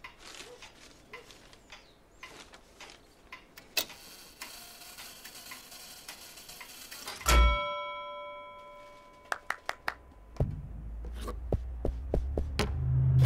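Quiet room with scattered small ticks. About seven seconds in, a single thunk sets off a ringing chime of several tones that dies away over a second or so. A quick run of five clicks follows, then a low bass rumble starts and builds toward the end.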